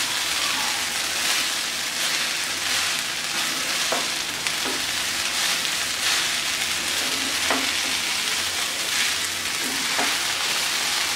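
Fried rice with fried cauliflower sizzling in a hot pan as it is stirred and tossed with a spatula. The sizzle is steady, with now and then a short scrape or knock of the spatula against the pan.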